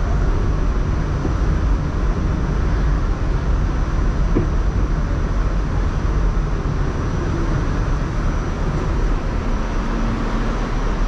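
New York City subway car heard from inside, running with a steady, loud rumble.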